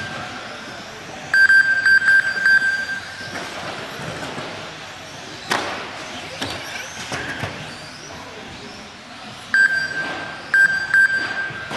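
Race lap-counting system giving runs of short, high, identical beeps as RC cars cross the timing line: a run about a second in and another near the end. In the middle there is one sharp knock.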